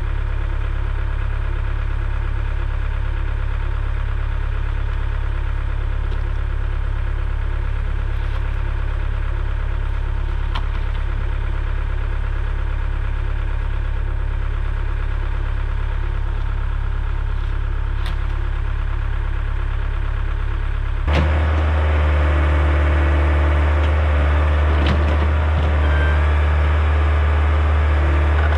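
Excavator's diesel engine running steadily at idle. About three-quarters of the way through it picks up to a louder, fuller pitch as the machine goes to work, with a few sharp knocks and scrapes.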